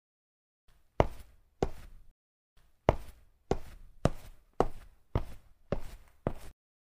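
Footsteps, about nine even steps at roughly two a second, each a sharp knock with a short tail.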